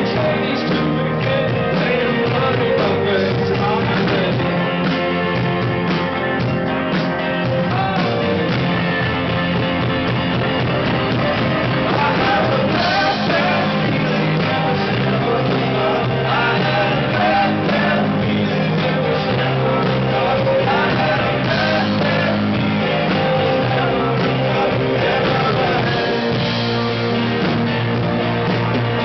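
Live rock band playing a song through a PA, with a singer over amplified instruments, steady and unbroken.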